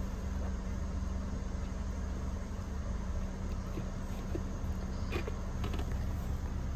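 Steady low hum of a car idling, heard from inside the cabin, with a thin, steady insect trill from outside. A few soft clicks about five seconds in.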